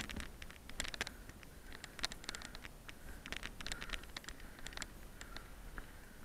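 Bicycle rolling along a gravel track: an irregular scatter of sharp clicks and ticks from stones under the tyres and the bike's rattle.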